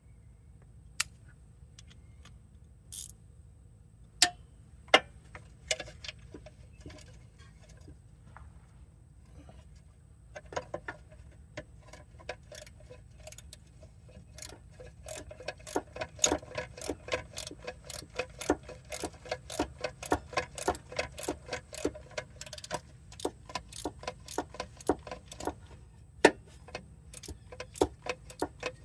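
Ratchet wrench clicking in quick, steady strokes as bolts are turned. Before it come a few separate metal clanks and taps.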